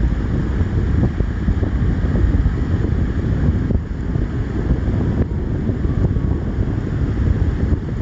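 Wind buffeting the phone's microphone: a loud, low rumble that swells and dips without a break.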